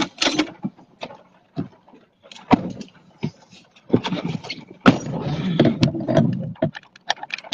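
Plastic clicks, knocks and rattles of a camera mount being handled and adjusted right at the microphone. A denser stretch of rubbing and scraping comes about four seconds in.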